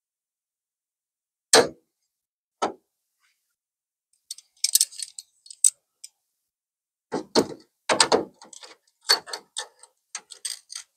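A steel repair patch knocking against a car's sheet-metal rear panel while locking pliers are clicked shut to clamp it in place. Two single sharp knocks come first, then several clusters of quick metallic clicks.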